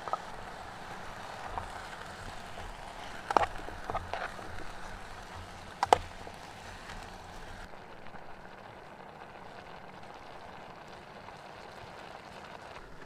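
Metal utensil clinking against the side of a metal cooking pot while stirring vegetables, with a few sharp clinks about three and six seconds in, over a steady hiss.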